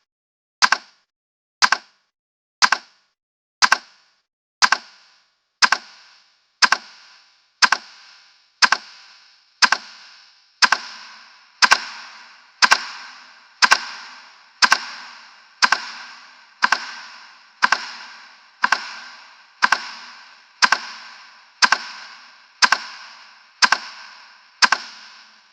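A timer's tick sound effect: one sharp click a second, each with a short ringing tail that lasts longer from about ten seconds in.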